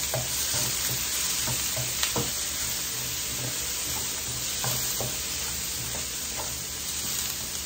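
Mixed vegetables sizzling in butter in a nonstick wok while a wooden spatula stirs them: a steady frying hiss with a few scattered knocks and scrapes of the spatula against the pan.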